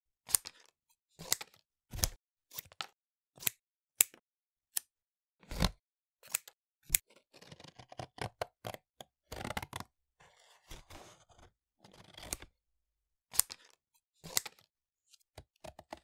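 A series of short, sharp cutting sounds, irregularly about a second apart, with a denser stretch of scraping, rustling cuts from about seven to twelve seconds in.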